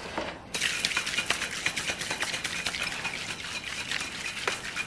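A stainless steel cocktail shaker being shaken, the margarita mix sloshing inside in quick, dense splashes that start about half a second in.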